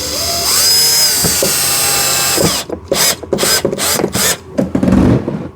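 Cordless drill/driver driving a screw into a ride-on toy car's fender. The motor spins up and runs steadily for about two and a half seconds, then comes a run of short bursts as the screw is snugged down.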